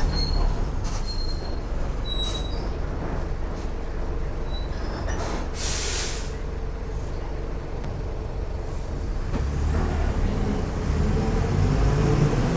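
Mercedes-Benz OF 1418 bus's diesel engine running at low revs. A few brief high squeaks come in the first couple of seconds, then a short loud hiss of released compressed air a little before the middle. Near the end the engine revs rise as the bus pulls away.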